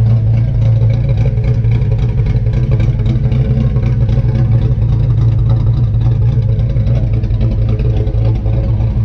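Holden 308 V8 (5-litre) fitted with an aftermarket cam, idling steadily with a fast, even pulsing beat.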